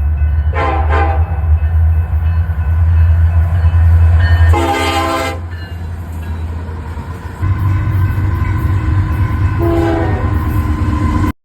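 Train horn sounding three blasts: a short one about half a second in, a longer one of about a second near the middle, and a short one near the end, over a steady low rumble of the train. The sound cuts off suddenly near the end.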